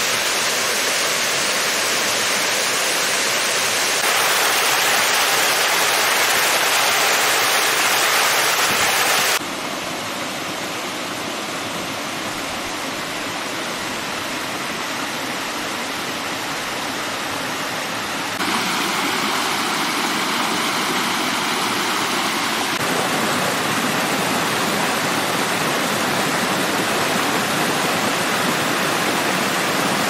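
Waterfalls and cascading streams: a steady rush of falling water. It changes abruptly several times, louder for the first nine seconds and quieter after, as it passes from one fall to another.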